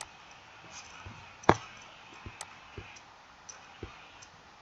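Scattered, irregular clicks and light taps over faint room noise, with one sharp, louder click about a second and a half in.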